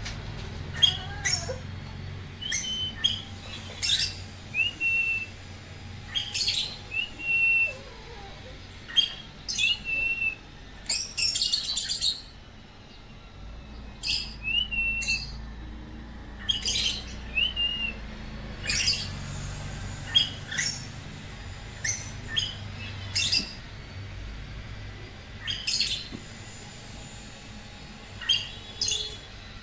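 Pet cockatiel and African lovebirds chirping: frequent short, shrill chirps at irregular intervals, mixed with a few brief whistled notes.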